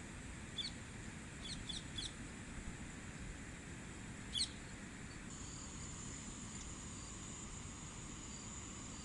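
Small birds give a handful of short, high chirps in the first half, then a steady high insect drone starts about five seconds in and holds, over low steady outdoor background noise.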